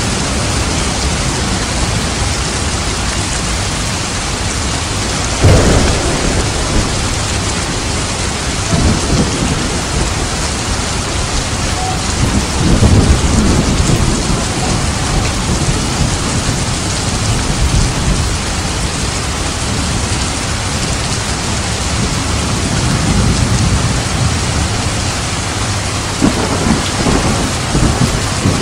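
Heavy rain falling steadily at night, with several rolls of thunder over it; the loudest come about five and thirteen seconds in, and more near the end.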